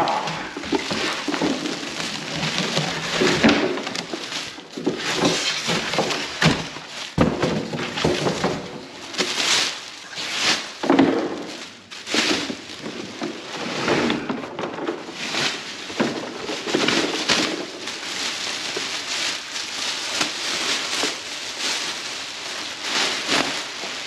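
Plastic packaging bag crinkling and rustling as a portable fridge freezer is lifted out of its box and unwrapped, with an occasional knock or thunk.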